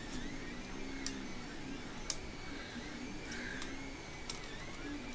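Creality Ender 2 3D printer running a print: its stepper motors whine in short rising and falling tones as the print head moves, with a few sharp light clicks among them.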